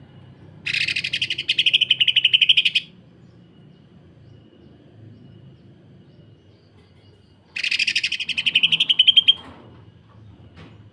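Greater green leafbird (cucak ijo) giving two bursts of harsh, rapid-fire chatter, each about two seconds long. This is the fast, machine-like rattling song that bird keepers call the 'sewing machine' call.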